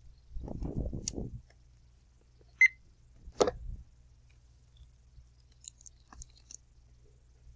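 A barcode scanner gives one short, high beep about two and a half seconds in as a library item's barcode is read. Around it are handling noises: a rustle near the start and a knock just after the beep.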